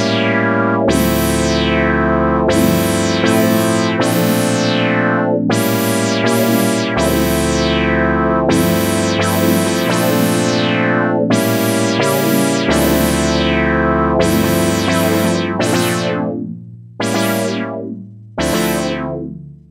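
Clavia Nord Lead 2X virtual-analog synthesizer recorded straight into a line input, playing a custom chord patch: each struck chord opens bright and its filter sweeps down over about a second, over a held bass note that changes every few seconds. Near the end the chords die away to quiet between strikes.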